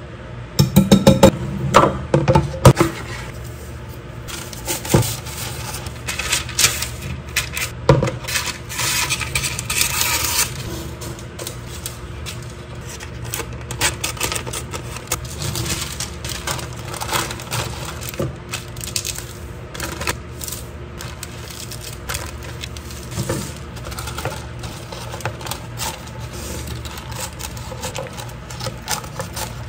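A wire whisk clattering against a glass mixing bowl in quick strokes for the first few seconds, the loudest part. Then paper rustling and crinkling as it is pressed into a plastic container, with scissors snipping the excess paper near the end.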